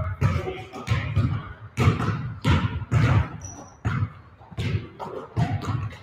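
Basketballs being dribbled on a gym floor: a string of bounces, about two a second in an uneven rhythm, as more than one ball hits the floor.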